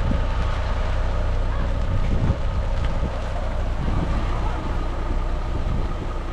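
Old truck engine idling, a steady low even rumble.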